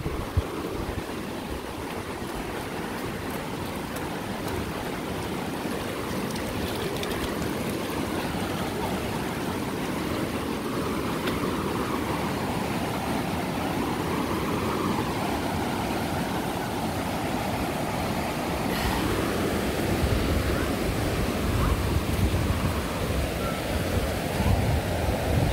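Floodwater rushing steadily, with gusts of wind rumbling on the microphone near the end.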